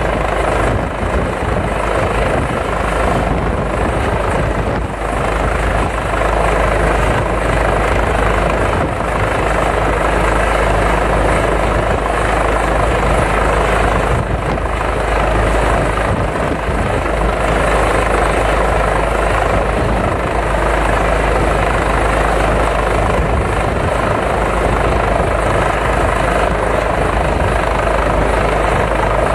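Helicopter hovering low overhead, its rotor and turbine noise loud and steady throughout.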